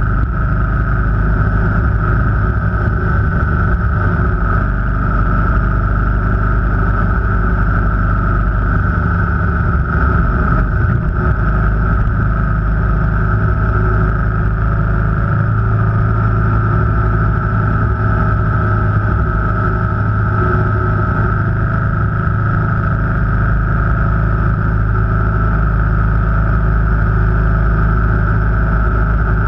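Steady engine and road noise of a vehicle cruising at an even speed, with no marked revving or gear changes.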